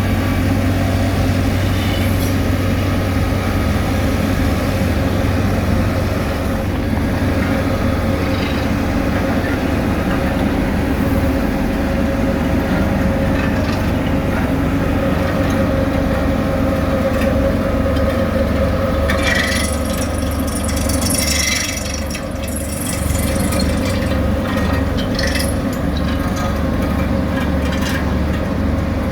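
Heavy diesel road-construction machinery running steadily with a low engine hum, with a stretch of metallic rattling and clatter about two-thirds of the way through.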